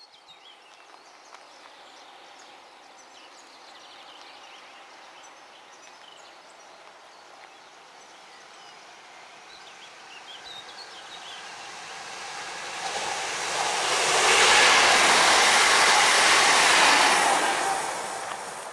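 Newag Impuls electric multiple unit approaching and passing close by. Its sound builds slowly, is loudest for about three seconds past the two-thirds mark, then falls away. Birds chirp faintly at the start.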